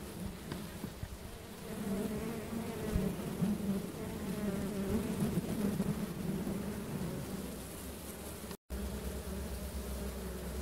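Bees buzzing: a steady, wavering hum that cuts out for a moment about eight and a half seconds in.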